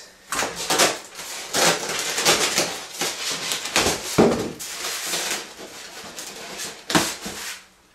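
Plastic packing wrap and styrofoam being handled, crinkling and rustling in irregular bursts, dying away near the end.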